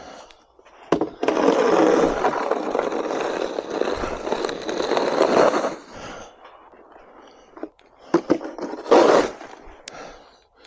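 Snow shovel scraping along pavement in one long push of about five seconds, then a few shorter scrapes near the end.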